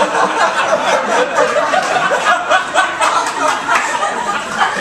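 Audience laughing after a punchline.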